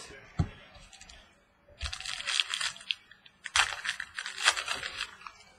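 Foil trading-card pack wrapper crinkling and tearing in two bursts of about a second and a half each.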